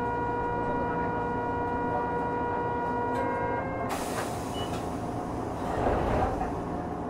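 Inside a standing Hankai Tramway 351-series tramcar: a steady buzzing tone that cuts off after about three and a half seconds. A hiss follows from about four seconds in, then a low rumble near six seconds.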